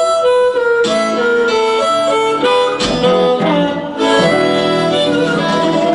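Harmonica playing a blues melody line of held and bending notes, over strummed acoustic guitar accompaniment.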